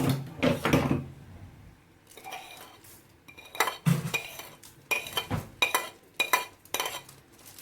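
A metal spoon clinking and scraping against a cooking pan: a soft scrape, then a quick run of about a dozen sharp clinks with a slight ring.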